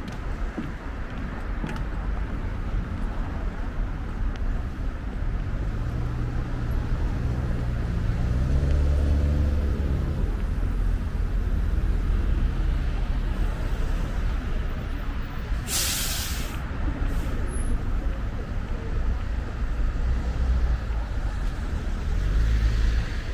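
Busy road traffic with a steady low rumble. About a third of the way in, a heavy vehicle's engine passes, rising and then falling in pitch. About two-thirds through comes a short, sharp hiss of bus air brakes.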